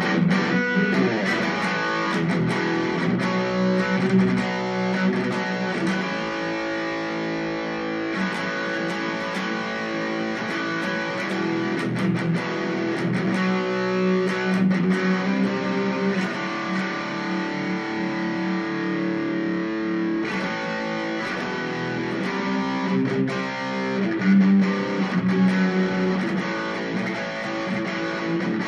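Legend Les Paul Custom electric guitar with humbucker pickups, Korean-made, played through a Boss Katana Mini amp on an overdriven, distorted tone: strummed chords and picked riffs that ring on continuously.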